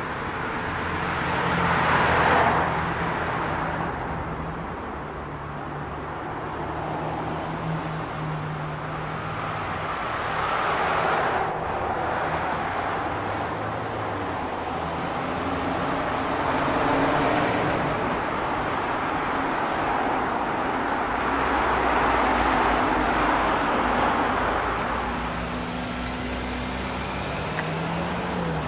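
Busy city street traffic: car and bus engines running and vehicles passing, the tyre and engine noise swelling and fading every few seconds over a steady low engine hum.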